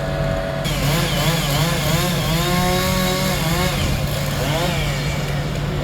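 Chainsaw engine running steadily during tree cutting, with voices of the crew over it.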